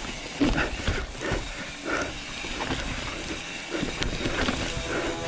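Mountain bike clattering and rattling over a rough, rocky trail on a descent, with irregular knocks from the bike and tyres, over a steady rush of wind and tyre noise.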